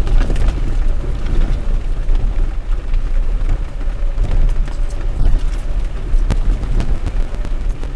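A vehicle running off-road, heard as a heavy, unbroken low rumble with scattered sharp ticks throughout.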